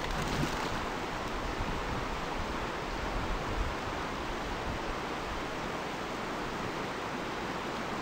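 Rushing water of shallow river rapids, a steady, even roar.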